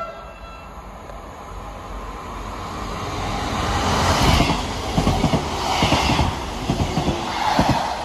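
A train passing close by, its noise building over the first four seconds, then the clickety-clack of its wheels over the rail joints in quick groups of knocks from about five seconds in.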